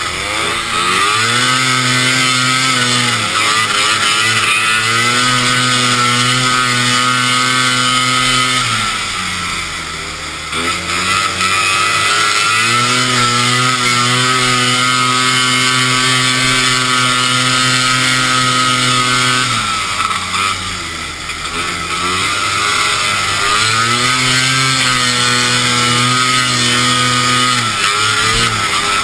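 Vintage racing snowmobile's two-stroke engine heard close up from the rider's seat, held at full throttle on the straights. Three times its pitch drops as the throttle is eased and then climbs again as the sled accelerates.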